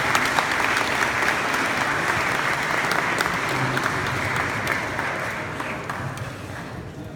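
Audience applauding, the dense clapping holding steady and then dying away over the last couple of seconds.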